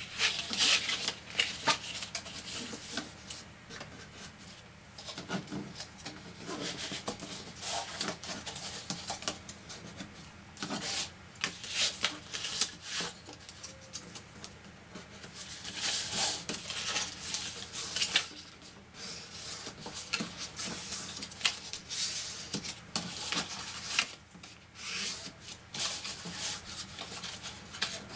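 A bone folder rubbed along the score lines of heavy cardstock, creasing the folds, with the card scraping and sliding on the table as the flaps are turned. Short, irregular rubbing strokes.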